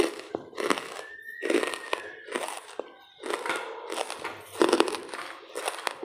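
Lumps of dry charcoal crunching and crackling in repeated short, sharp bursts, a little more than one a second.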